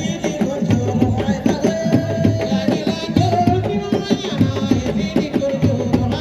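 Sabar drums played in a fast, dense rhythm, with singing over it.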